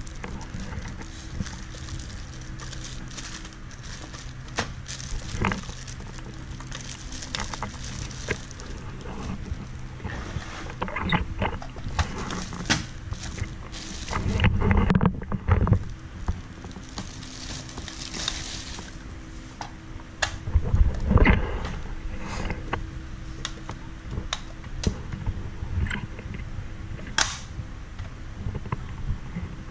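Clear plastic bag crinkling and rustling as it is pulled off a small portable gas stove, with clicks and knocks of the stove being handled and two louder bumps, one about halfway through and one about two-thirds through. A faint steady hum sits underneath.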